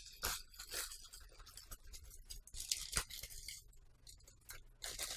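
Grey plastic postal mailer being handled and pulled open by hand: plastic crinkling and rustling in scattered short bursts, with a sharp click about three seconds in.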